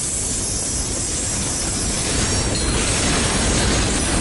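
Covered hopper cars of a freight train rolling past: a steady rumble of steel wheels on rail, growing a little louder about two seconds in, with a faint high squeal from the wheels.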